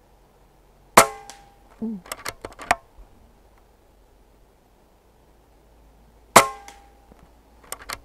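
Two shots from an Air Venturi Avenger .25 regulated PCP air rifle with a moderator, a dull crack about a second in and another about six seconds in, each with a short ringing tail. After each shot comes a quick run of clicks and clacks as the side-lever action is cycled to load the next pellet.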